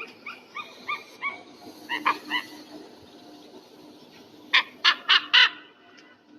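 Eagle calling: a run of short pitched notes, about three a second, then a pause and four louder, harsher calls in quick succession about two-thirds of the way through.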